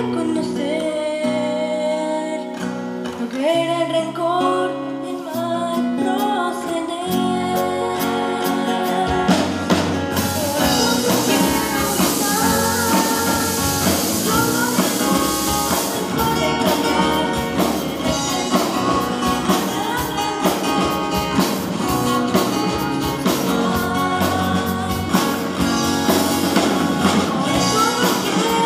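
A song with singing, in an upbeat Christian pop style. It opens lightly with guitar, then drums and bass come in about nine seconds in, and the full band plays on.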